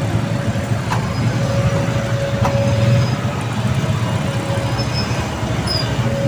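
Road traffic going by: motor vehicles running past in a steady low rumble.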